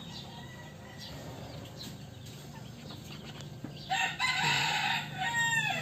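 A rooster crows once about four seconds in: one long call of about two seconds, its pitch falling at the end. A steady low hum runs under it.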